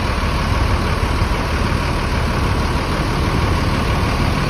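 Mercedes-Benz coach's diesel engine idling steadily: a low, even rumble.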